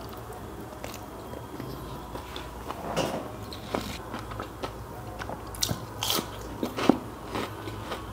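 Close-miked biting and chewing of crispy fried food, including a breaded onion ring, with sharp crunches scattered through and the loudest crunch about seven seconds in.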